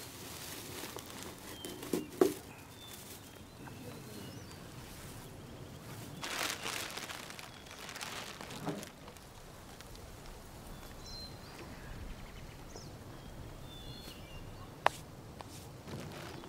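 Dry grass and brush rustling and crackling as they are pulled up by hand, with a couple of sharp snaps about two seconds in and another near the end. Faint bird chirps come through now and then.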